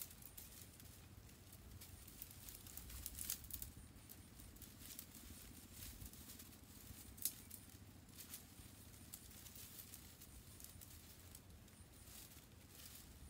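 Faint rustling and crackling of leafy branches being laid onto a stick shelter frame, with a sharper snap about seven seconds in.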